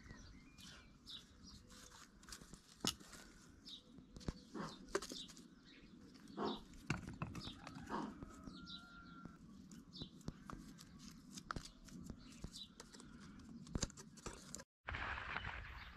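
Quiet outdoor ambience: short bird chirps with one brief whistled note, over scattered clicks and knocks. Near the end the sound drops out for a moment, then a louder steady hiss comes in.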